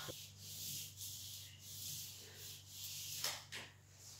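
Faint soft rubbing in several short swells: masking tape being pressed and smoothed along the foot of a wall by hand, over a low steady hum.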